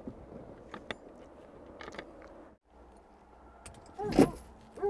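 Faint crunching and clicks, then about four seconds in a short, loud yelp from an excited hunting hound, rising and falling in pitch.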